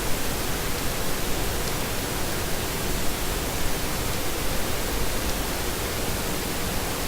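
Small fischertechnik DC motors running steadily on pulse-width-modulated drive, heard as an even, unbroken hiss.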